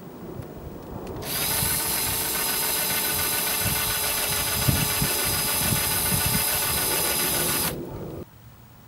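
Handheld electric power tool running steadily at high speed for about six seconds, starting about a second in and stopping near the end.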